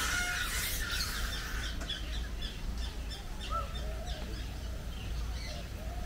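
Several birds calling: one loud, noisy call over the first second and a half, then a quick run of short high chirps mixed with lower arching calls.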